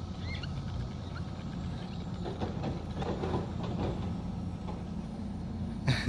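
A steady low engine-like hum, with a few faint high bird chirps in the first second or so and a sharp knock at the very end.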